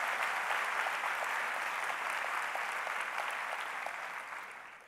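Audience applauding, the clapping dying away over the last second.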